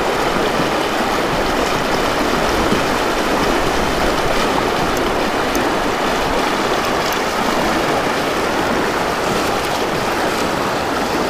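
Shallow, fast river water rushing over a stony riffle close by, a steady, unbroken wash.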